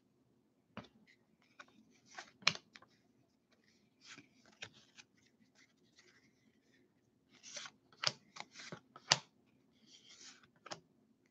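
Faint handling of a stack of Topps Heritage baseball cards, shuffled one by one in the hands: scattered clicks and short swishes as cards slide off the stack, with sharper snaps about two and a half seconds in and again around nine seconds.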